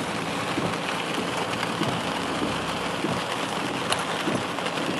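Rain hissing and ticking on a Toyota Hilux as it drives a wet dirt track, heard from inside the cab, with the engine running steadily underneath.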